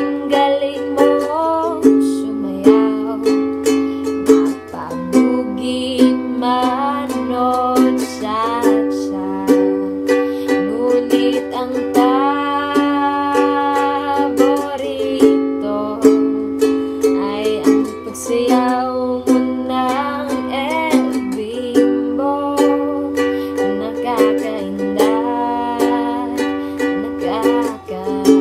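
Clifton Kokolele soprano ukulele strummed in a steady repeating down-down-up-up-up-down-up-down-up pattern through a G, A7 and C chord progression, with a woman's voice singing along.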